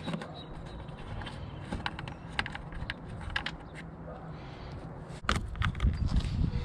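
Scattered small clicks and rattles of plastic trunk-trim fasteners being loosened by hand, with rubbing and handling noise from about five seconds in.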